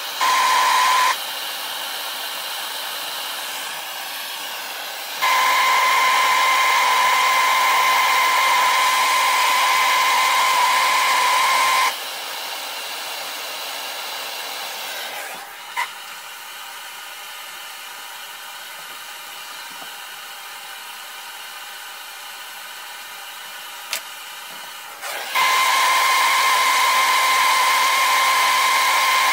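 Handheld gas torch burning with a steady hiss as it heats brass ramrod pipes for soldering. Three times it gets much louder with a steady whistling tone, when the flame is played onto the work, and drops back to a softer hiss in between. Two sharp clicks come during the quieter middle stretch.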